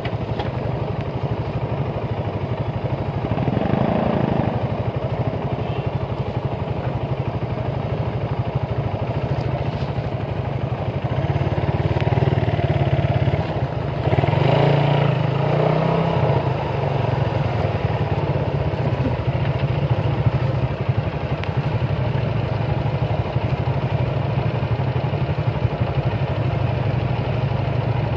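Motorcycle engine heard from the saddle, running steadily at low speed in traffic, and briefly louder about halfway through.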